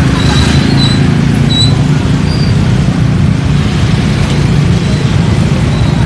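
A steady, loud low rumble of a bus engine and many motorcycle engines moving off together in traffic. A few brief high-pitched peeps come in the first half.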